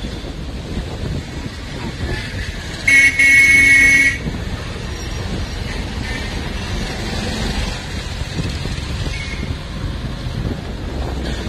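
Street traffic noise, with a vehicle horn honking once for about a second, about three seconds in; the horn is the loudest sound.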